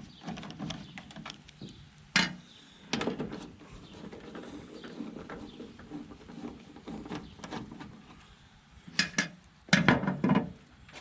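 Hand tool undoing the two 8mm bolts that hold a pickup's tail light housing: a run of small clicks and taps, a sharp knock about two seconds in, and a cluster of louder knocks and clatter near the end.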